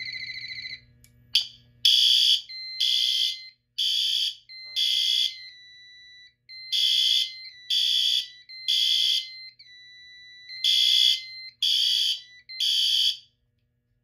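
Fire alarm drill: a horn, one of the System Sensor SpectrAlert Advance horn-strobes on the Fire-Lite panel, sounds the evacuation signal as repeating groups of short loud blasts with pauses between. A thinner steady tone runs under the gaps. A brief rapid warbling beep comes first, about a second in.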